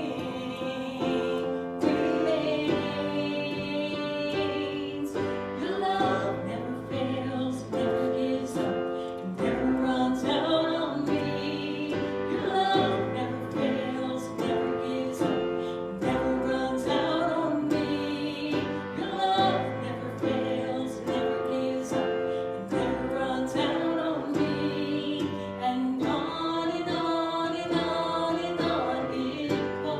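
Worship song: several voices singing together over instrumental accompaniment with a steady beat.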